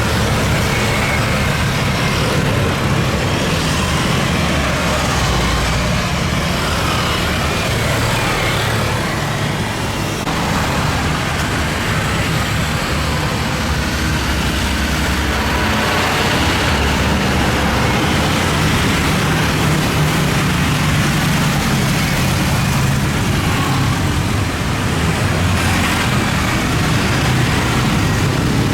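Steady road traffic noise: a continuous, even rumble of vehicle engines and tyres with no clear rise or fall.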